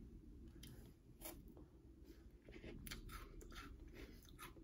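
Faint crunching and chewing of a chocolate-coated fudge mint cookie: a run of short, irregular crisp crunches.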